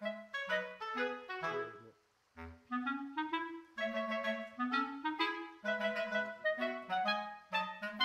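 Background music: a melody of short, evenly paced notes with a brief pause about two seconds in.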